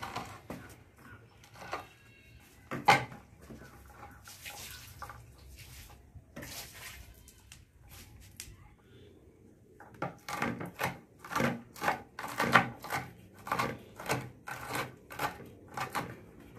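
Kitchen knife chopping garlic cloves and green chillies on a wooden cutting board: scattered single knocks at first, then a steady run of quick chopping strokes from about ten seconds in.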